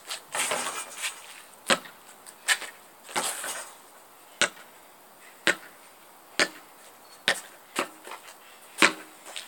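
Basketball bouncing as it is dribbled: a run of sharp slaps, roughly one a second. A noisier scuffle of hits comes near the start, around a shot at the hoop.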